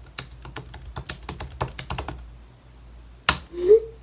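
Typing on a computer keyboard: a quick run of keystrokes that stops about two seconds in, followed by one sharp click and a brief rising tone near the end, over a low steady hum.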